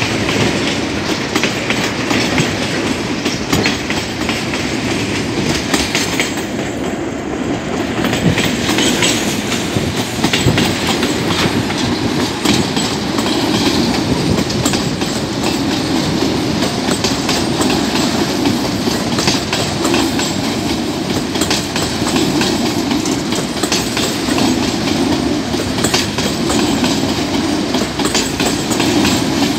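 Container wagons of a freight train rolling past. Steel wheels make a steady rumble on the rails, with a continuous clatter of clicks and knocks as the wheels cross the rail joints.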